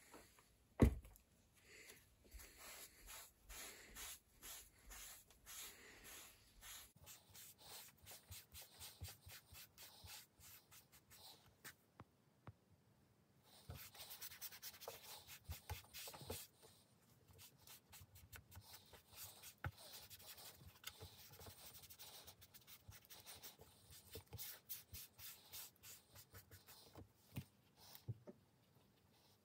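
A cloth rubbing leather balsam into a vintage Dunlop M15 rubber bicycle saddle: a long run of quick, soft rubbing strokes, working the oil into the stiff old rubber. A single sharp knock sounds about a second in.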